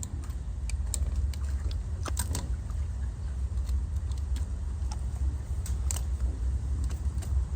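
Pigs biting and chewing on a livestock drinking nipple: irregular sharp snapping and popping clicks over a steady low rumble.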